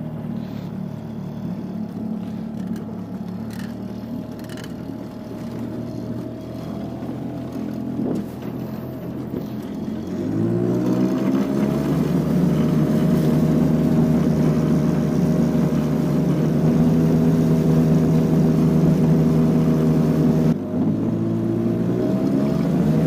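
Parsun 5.8 outboard motor running at low throttle, then revving up about ten seconds in and holding a higher, louder speed as the boat gets underway. It drops back suddenly near the end.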